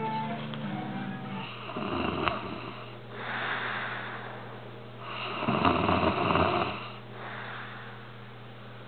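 A sleeping pet snoring: two long rasping snores about three and a half seconds apart, the second louder, each trailing into a breathy hiss. Music fades out in the first second and a half, and a steady low hum runs under it all.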